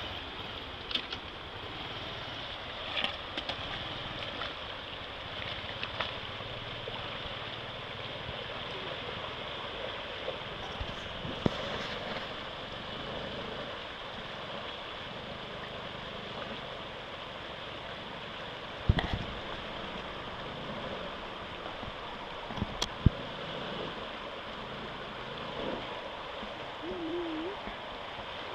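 Shallow river water rushing and splashing steadily around a small motorcycle as it is ridden through the river, its engine running under the water noise. A couple of sharp knocks stand out about two-thirds of the way in.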